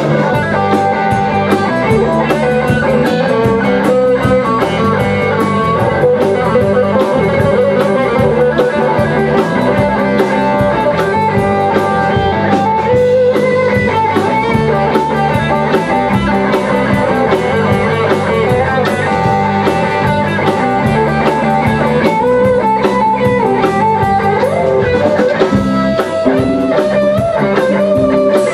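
Live rock band playing an instrumental passage with no singing: electric guitar over electric bass and a drum kit, loud and steady throughout.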